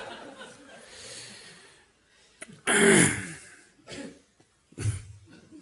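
Laughter fading out, then a short loud burst of a person's voice with a falling pitch about three seconds in, followed by two softer short vocal sounds.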